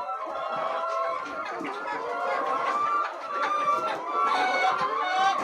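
A flock of laying hens clucking, many overlapping short calls going on steadily.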